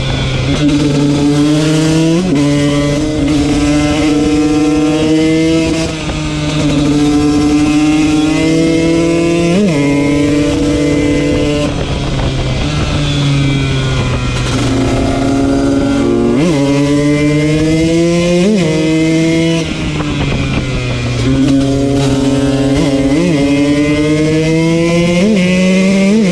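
KTM 125 two-stroke motard engine running hard at high revs in long pulls, the pitch slowly climbing and falling, with several quick sharp pitch flicks as it shifts gear and two brief drops where the throttle closes.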